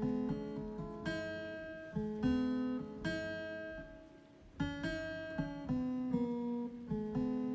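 Background music played on an electronic keyboard with a plucked, guitar-like sound: chords and notes struck every half second or so, each fading away, with a brief lull about four seconds in.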